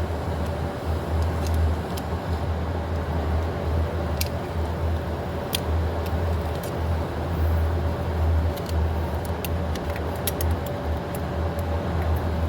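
A steady low rumble with a constant hum runs throughout. Over it come scattered sharp metallic clicks and taps, thicker near the end, from hand tools working the fuel-injector retaining clips on the engine's fuel rail.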